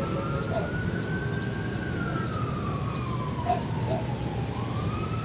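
Emergency vehicle siren wailing, its pitch slowly rising and falling about once every four to five seconds, over a steady low rumble.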